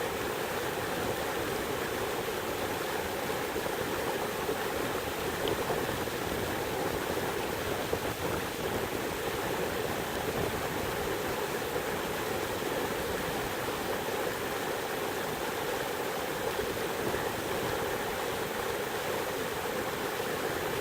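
River running high with spring snowmelt: a steady, even rush of flowing water.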